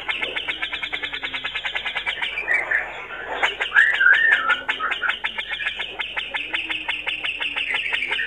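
Male grey-cheeked bulbul (cucak jenggot) singing in rapid runs of harsh chattering notes, more than ten a second, broken by a short pause about two and a half seconds in, with a brief whistled warble about four seconds in.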